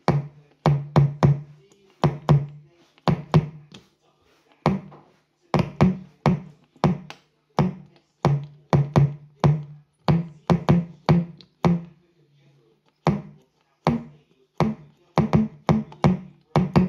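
A DIY-built Ciat-Lonbarde Gerassic Organ, a three-key synth, played by tapping its keys: a string of short, low, bongo-like drum tones that die away quickly, in an uneven rhythm with a couple of brief pauses.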